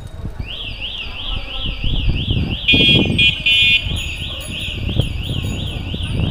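Electronic siren sweeping up in pitch about three times a second. For about a second in the middle it switches to a louder steady beeping tone.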